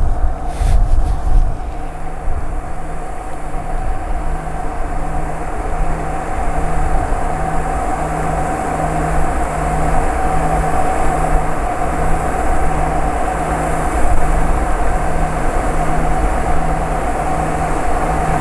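Wind gusting across the microphone, strongest in the first couple of seconds, over a steady mechanical hum that carries a faint regular pulse about one and a half times a second.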